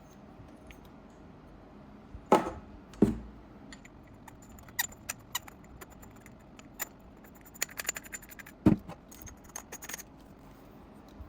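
Handling noise: three loud knocks, two close together about two seconds in and one near the end, with a scattered run of small hard clicks and rattles in between.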